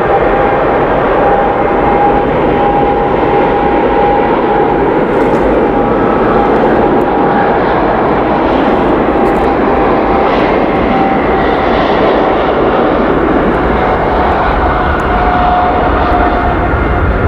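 Boeing 777F's twin GE90-110B1L turbofans at takeoff thrust: a loud, steady jet roar with a steady whine over it, the deep rumble growing stronger near the end.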